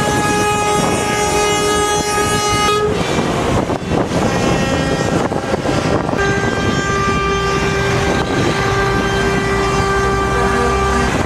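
Semi-truck air horns blowing long blasts as the trucks pass. One chord-like blast ends about three seconds in, and another starts about six seconds in and stops near the end, over steady diesel engine and road noise.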